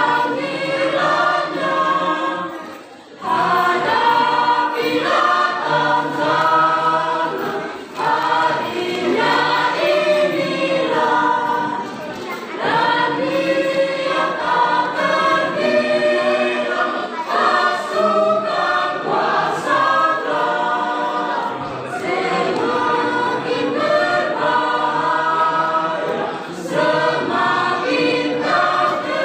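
Mixed choir of women and men singing a hymn in parts, in long sustained phrases with brief breaths between them, the longest pause about 3 seconds in.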